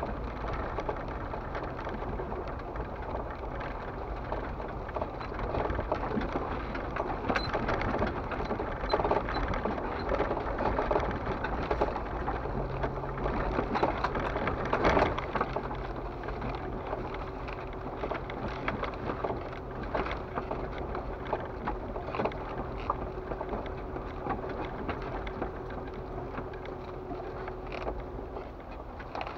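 Off-road vehicle crawling over a rough dirt and gravel trail, heard from inside the cab. A low engine hum runs under the crunch of tyres on rocks and frequent knocks and rattles from the body.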